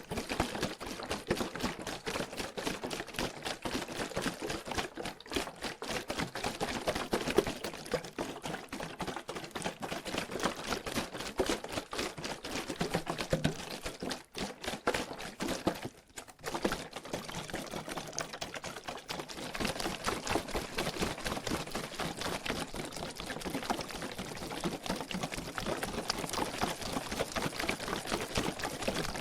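Water sloshing and splashing inside a plastic water bottle being shaken, with a fast, irregular patter of slaps against the plastic. It stops briefly twice around the middle, then carries on.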